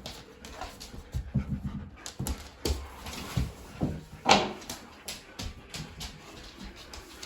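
Dogs panting and whimpering in a small room, with scattered knocks and scuffles and one sharper, louder burst about four seconds in.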